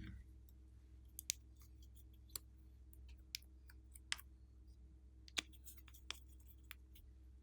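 Faint scattered clicks and pops from slime being handled, about half a dozen sharp ones spread irregularly, over a low steady background hum.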